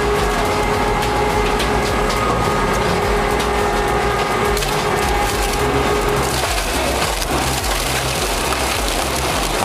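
Industrial shredder crunching and splintering wood, with a steady machine whine under it that fades out about six seconds in.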